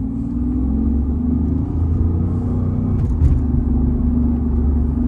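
Mercedes CL600's twin-turbo V12 pulling the car up a hill under load, a steady low rumble that swells at the start and then holds. It is running smoothly on all twelve cylinders now that the misfire is cured.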